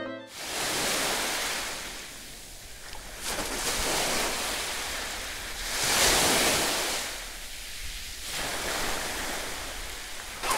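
Small sea waves washing onto a beach, the surf swelling and fading every few seconds, with some wind on the microphone.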